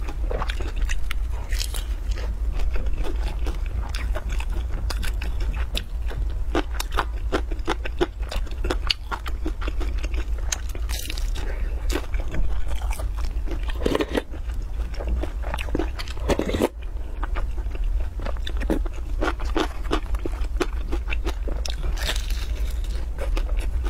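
Close-miked chewing and crunching of crisp pan-fried stuffed flatbread, with a few louder bites into the crust, over a steady low hum.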